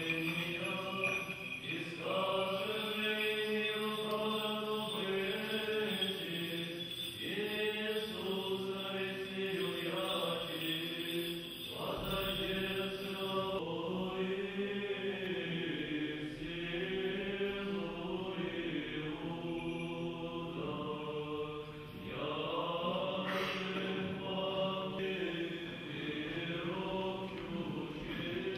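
Orthodox liturgical chant sung by men's voices: a slow, continuous melody over a steady low held note.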